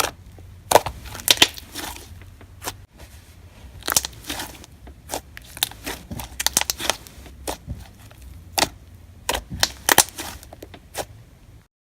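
Clicky sorbet slime being stretched and squeezed by hand, giving irregular sharp clicks and crackles, several a second at times. It cuts off suddenly near the end.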